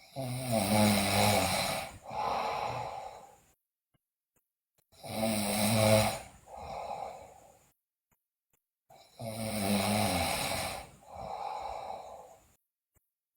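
A sleeping girl snoring loudly: three breaths, each a loud, pitched snore followed by a shorter, softer one, with a silent pause of about a second and a half before the next.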